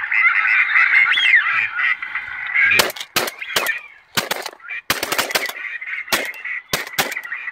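A dense chorus of ducks calling, then, from about three seconds in, a rapid volley of about a dozen shotgun shots from several guns, some shots close together, with the calling carrying on faintly beneath.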